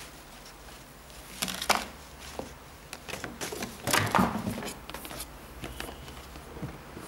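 Hands handling a cardboard shoebox and a white cloth: scattered rustles, scrapes and light knocks, with the loudest bursts about one and a half seconds in and again around four seconds.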